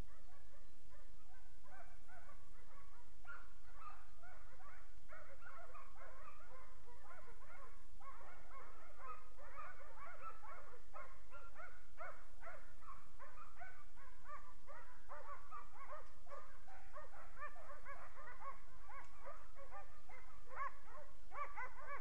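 A pack of hunting dogs barking steadily, many barks overlapping with no break. The barking grows busier about a third of the way in.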